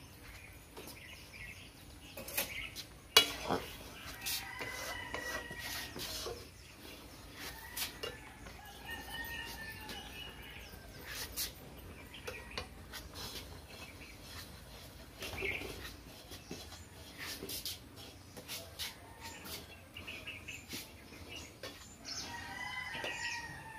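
Metal spatula scraping and knocking against an aluminium wok as dry semolina is stirred and roasted, in irregular clicks and scrapes. Birds call now and then in the background.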